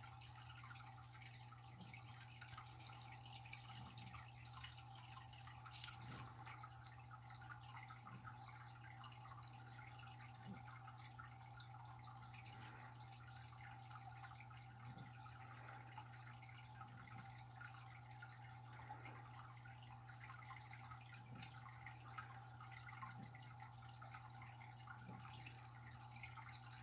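Near silence: indoor room tone with a steady low hum and faint ticks about every two seconds.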